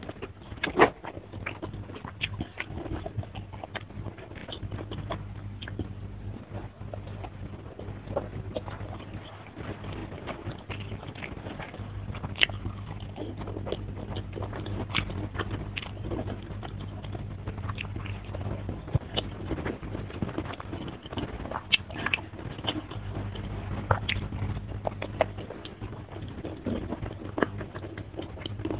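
Close-miked chewing and biting of food eaten by hand, with many sharp mouth clicks and crunches.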